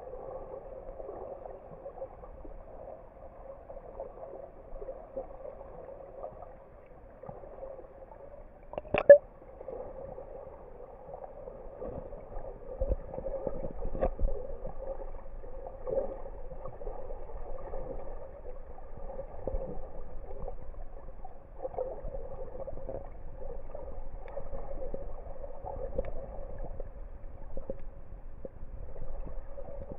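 Muffled underwater sound picked up by a submerged camera: a steady dull wash of water noise with faint knocks. There is one sharp click about nine seconds in, and the noise gets somewhat louder from about twelve seconds on.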